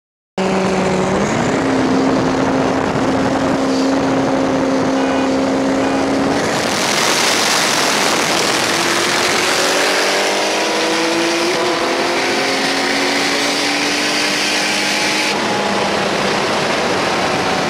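Turbocharged car engines in a roll race, heard from inside a car: a steady engine drone for about six seconds, then full-throttle acceleration with loud rushing air and engine notes climbing in pitch. The rushing drops away about fifteen seconds in as the run ends.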